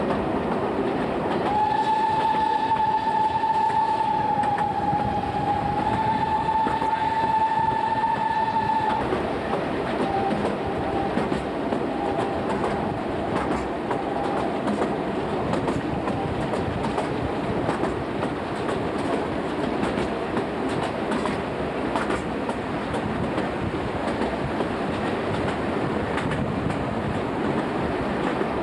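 Narrow-gauge steam locomotive sounding its whistle: one long steady blast of about seven seconds that dips briefly halfway. Underneath is the steady running noise of the train, with clicks from the rail joints heard from inside a carriage at an open window.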